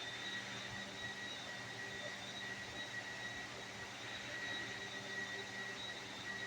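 Steady industrial machinery noise: a constant hum with a thin, unchanging high whine above it and an even hiss, with no distinct strokes or impacts.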